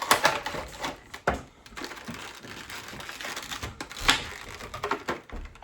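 A Funko Pop box being opened and the vinyl figure pulled from its plastic insert: crinkling and scraping of cardboard and plastic with a few sharp clicks, the sharpest about four seconds in.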